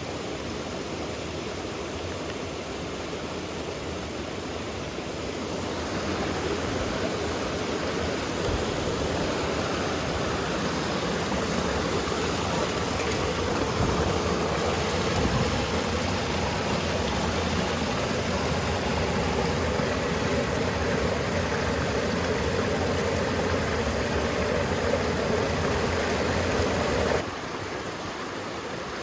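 Mountain stream water rushing steadily over rocks. It grows louder about six seconds in and drops back abruptly near the end.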